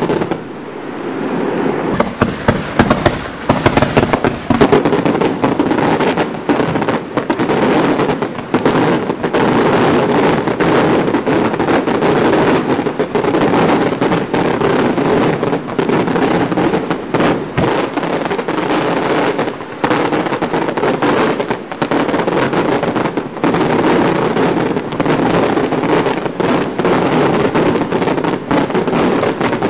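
Daylight fireworks going off in a dense, continuous barrage of bangs and crackling reports, after a brief lull in the first two seconds.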